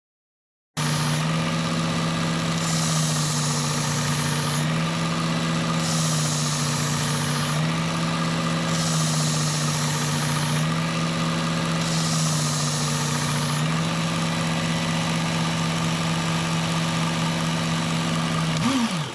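Work Sharp electric belt knife sharpener running steadily, with a knife blade drawn across the fine X22 belt in alternating passes about every three seconds. Each pass adds a grinding hiss and pulls the motor's hum slightly lower. Near the end the motor is switched off and its pitch falls away.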